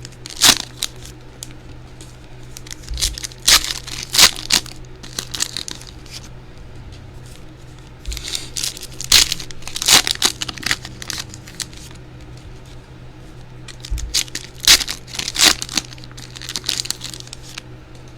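Plastic wrapping on a sealed trading-card box being torn and crinkled open, in several bursts of crackling with short pauses between.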